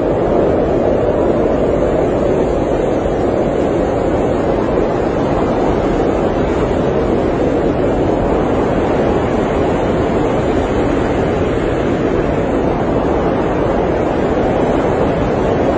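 Steady blizzard wind, a dense rushing noise that swells and eases slowly.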